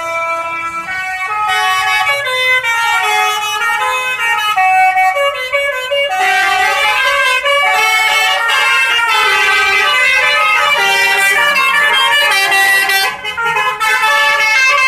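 Telolet basuri, a multi-tone electric musical bus horn, playing a long winding tune of quickly changing notes, several horn tones sounding together.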